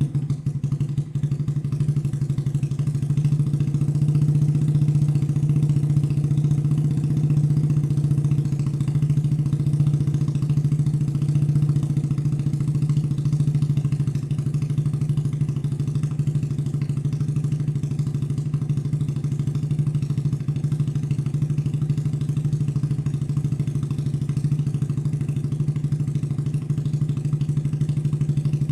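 Suzuki Shogun Axelo R motorcycle's single-cylinder four-stroke engine idling steadily through an aftermarket X1 Speed Racing silencer, just after being started.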